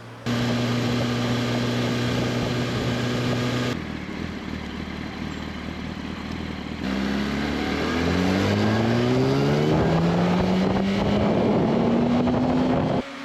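A 2007 Yamaha R1's 998 cc inline-four on its stock muffler, heard in cut-together flyby clips: first holding a steady engine speed, then a quieter stretch, then accelerating with the pitch climbing, a gear change about eleven seconds in, and climbing again.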